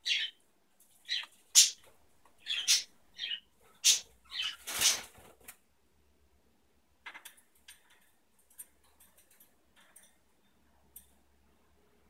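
Cockatiels chirping: a quick run of about ten short chirps over the first five seconds or so, then quiet apart from faint scattered clicks near the end.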